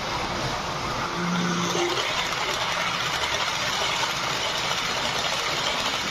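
H0-scale model passenger train running along the layout's track with a steady rolling whir that grows louder about a second in.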